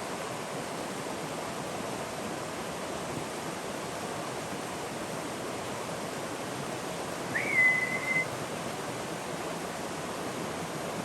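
Small mountain stream rushing steadily. About two-thirds of the way through there is a single short whistle that rises quickly, then holds one pitch for under a second.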